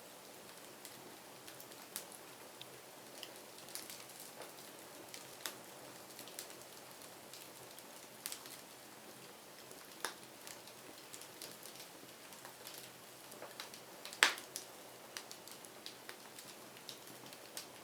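Wood fire crackling: irregular sharp pops and snaps over a faint steady hiss, with one much louder pop about 14 seconds in.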